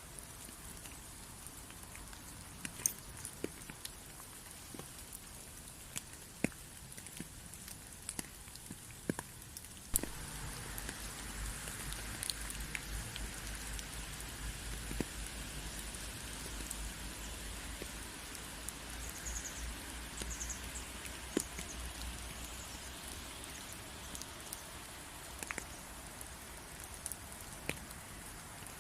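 Steady rain with single drops tapping sharply now and then. About ten seconds in it turns heavier and louder, with a low rumble underneath, then eases again a few seconds before the end.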